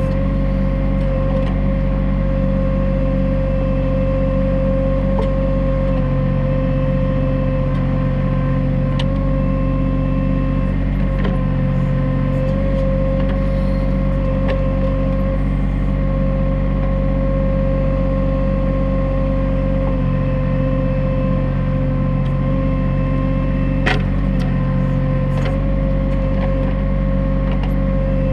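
New Holland TC33D compact tractor's diesel engine running steadily under a Woods 7500 backhoe, with a constant high whine over the engine note. The engine note shifts a little every few seconds as the backhoe works, with a few metallic knocks, the sharpest one near the end.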